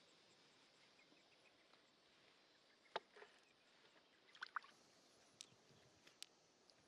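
Near silence broken by a few faint, sharp clicks and taps: one about three seconds in, a quick pair a little later, and two smaller ticks near the end.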